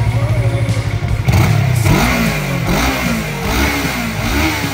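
Motorcycle engine idling, then revved in a run of quick throttle blips, the pitch rising and falling about twice a second, starting a little over a second in.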